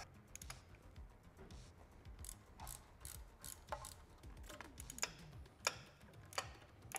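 Socket ratchet clicking in uneven short runs while a phase-wire terminal bolt is tightened down, with a few sharper clicks near the end.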